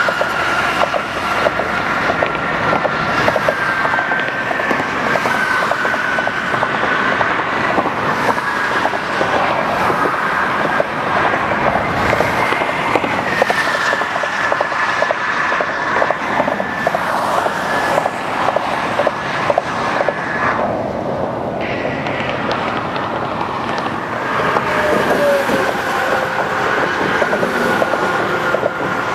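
Interstate highway traffic heard from on the overpass: a steady rush of tyres with rapid clacking as vehicles cross the deck, and a high whine that drifts slightly in pitch.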